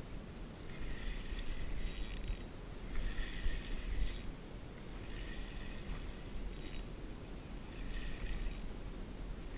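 Fishing reel whirring in short bursts every second or two as a hooked fish is played on a bent rod, over a steady low wind rumble.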